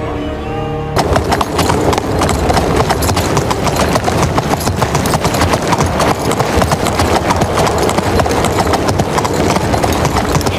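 Hooves of several horses clattering fast and densely, as a troop rides past at speed. It starts about a second in.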